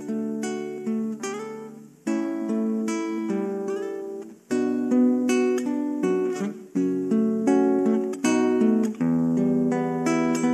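Guitar intro of a song with no singing yet: chords strummed in a steady rhythm, each ringing and fading before the next.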